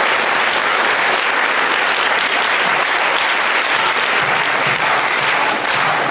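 Theatre audience applauding: dense, even clapping from many hands.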